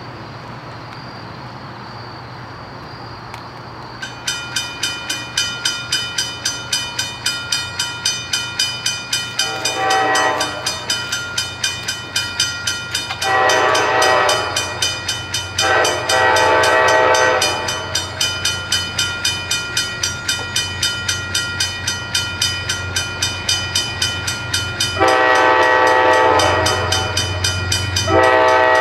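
A grade-crossing bell starts about four seconds in and rings steadily at about two strikes a second. Over it, an approaching diesel commuter train sounds its multi-chime horn in five blasts; the fourth is the longest and loudest. The locomotive's low engine rumble grows near the end as the train nears the crossing.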